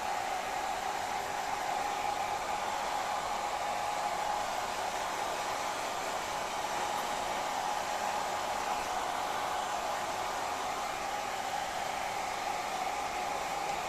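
Hair dryer running steadily: a constant rush of blown air with a steady whine from the motor.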